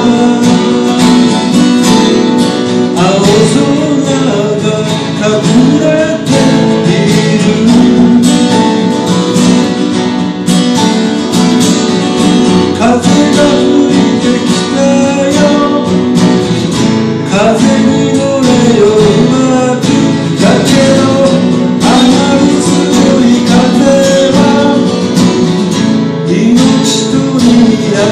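Two acoustic guitars playing together in a folk song, with a man singing over them.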